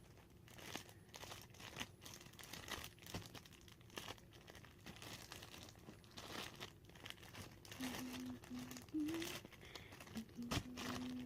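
Irregular crinkling and crackling as sticky slime is worked out of its plastic packaging by hand, with a faint hummed voice briefly near the end.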